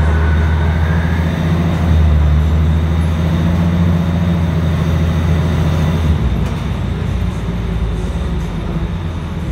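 Scania L113CRL bus's rear-mounted six-cylinder diesel engine pulling under load, heard from inside the passenger saloon while the bus drives along. A faint high whine fades out about a second in, and about six seconds in the engine note drops back as the load eases.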